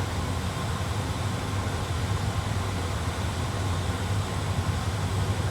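Steady cockpit background noise in an A320 flight simulator: a low hum with an even hiss, unchanging throughout.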